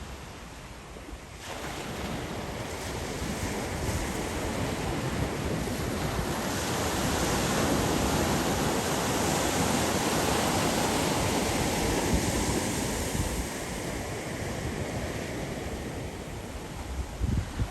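Waves breaking and washing up the beach, with wind buffeting the microphone. The surf swells up about two seconds in, is loudest in the middle, and eases off toward the end.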